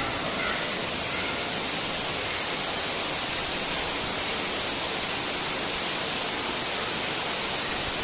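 Waterfall's steady, unbroken rush of falling water, heard from inside the rock canyon.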